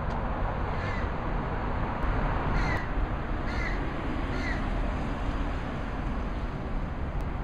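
A crow cawing four times in the first half of the clip, over a steady low background rumble.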